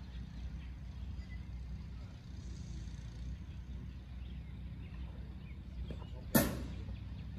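Steady low background rumble, with a single sharp, loud crack about six seconds in that rings briefly before dying away.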